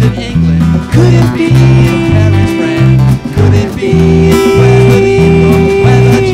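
A live band playing a song: acoustic guitar, accordion and drums, with men singing at microphones. A steady low beat runs about twice a second, under two long held notes.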